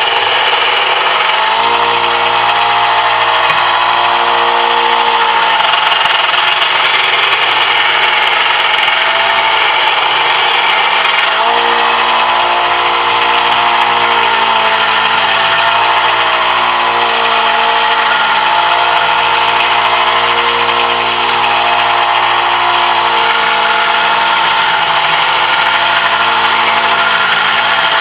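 An electric power tool motor running continuously under a load that shifts, its pitch wavering a little, while it works a brass piece.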